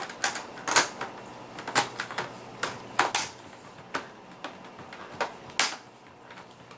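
Plastic laptop cover on a Dell Inspiron E1405 snapping back into place, its clips clicking in one after another: about a dozen sharp, irregular clicks, getting softer near the end.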